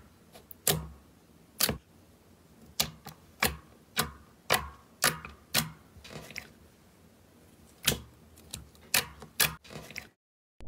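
Thick glossy slime popping and clicking as fingers press and poke into it: a dozen or so sharp, short pops at irregular intervals. The sound drops out completely for a moment near the end.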